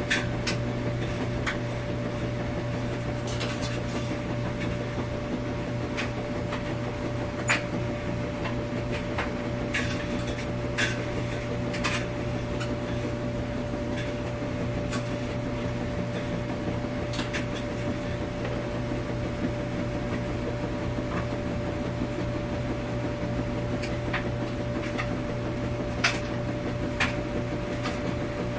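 Laundry-room ambience: a laundry machine running with a steady hum, with irregular light clicks and knocks scattered over it, a few of them sharper.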